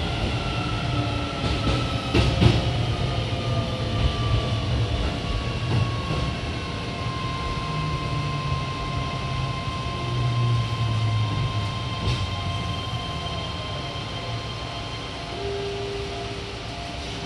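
Keio 7000 series train heard from inside the car: the Hitachi IGBT inverter whines over wheel and rail rumble, its tones falling slowly in pitch as the train slows, then holding steady. A brief clatter about two seconds in, and a lower hum takes over near the end.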